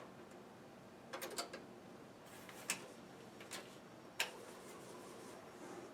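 Irregular mechanical clicks while working a Commodore 1541 disk drive setup: a quick run of three clicks about a second in, then single clicks roughly a second apart, over a faint steady hum.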